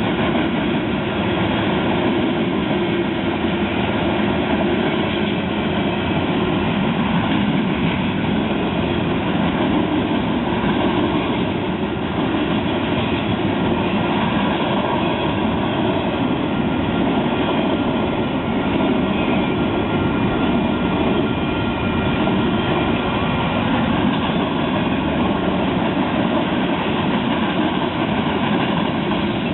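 A train passing close by on the track: steady rolling noise of wheels on rail, with faint high ringing tones from the wheels.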